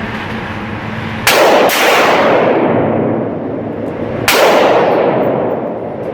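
.460 S&W Magnum handgun fired twice, about three seconds apart. Each shot is a very loud blast followed by a long rolling echo, and a second sharp crack comes just after the first shot.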